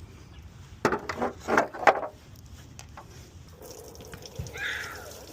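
Coolant splashing out of the radiator in four or five quick gushes, then running on as a quieter steady trickle.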